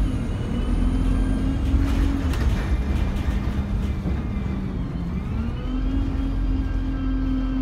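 Alexander Dennis Enviro200 single-deck bus under way, heard from inside the saloon: a steady diesel engine drone over a low road rumble. The engine note sinks in pitch around the middle, then climbs back and holds steady.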